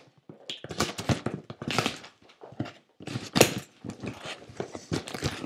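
A cardboard package being opened and unpacked by hand: an irregular run of rustling, tearing and knocking of box and wrapping, with a few sharper rips.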